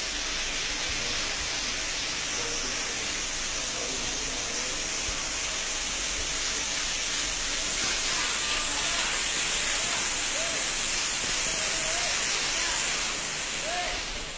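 High-pressure car-wash water jet spraying with a steady hiss, a little louder about halfway through.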